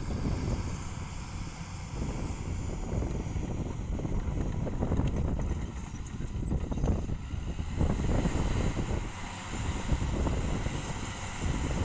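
Komatsu D65 bulldozer's diesel engine running as the dozer works, a steady low rumble with a few short clanks, with wind buffeting the microphone.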